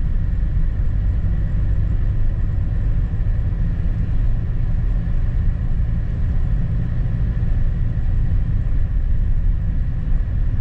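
Car driving along a snow-covered road: a steady low rumble of engine and tyre noise.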